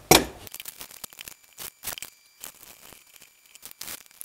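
A sharp knock right at the start, then scattered light clicks and crinkling as small plastic camera parts and their packaging are handled.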